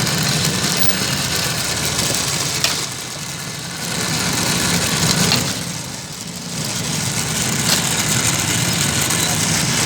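Steady motor noise with a low hum, easing off briefly twice before picking up again.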